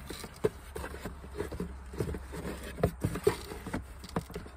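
Irregular light knocks and clicks of a replacement pedal assembly being handled and worked by hand, with a low steady hum underneath.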